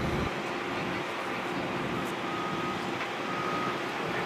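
Steady engine noise, an even rumble with no distinct knocks or strikes.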